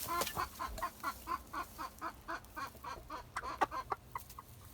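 Chickens clucking: a quick run of short clucks, several a second, with a few louder, sharper calls about three and a half seconds in.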